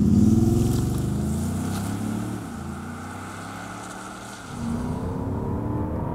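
Audi SQ7's V8 TDI diesel engine accelerating hard as the SUV pulls away, the sound fading over the next few seconds. About four and a half seconds in, the engine note grows louder again.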